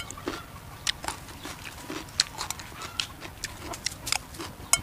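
A person eating close to the microphone: chewing and lip-smacking in irregular sharp clicks, several a second, with a spoon scooping rice from a plate.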